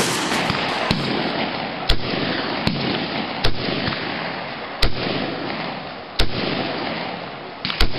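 AK-pattern rifle fired in single shots, one every second or so.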